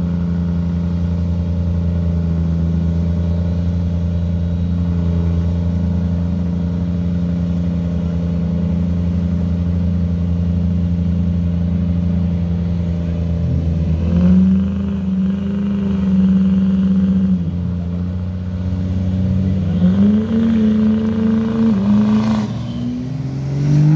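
Turbodiesel pickup truck engines running steadily at the drag strip start line. About halfway through they rev up and hold high revs for a few seconds, then drop back, and they rise again twice near the end.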